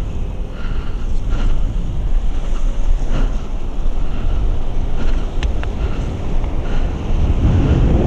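Wind buffeting the microphone: a steady low rumble, with a few faint clicks in the middle.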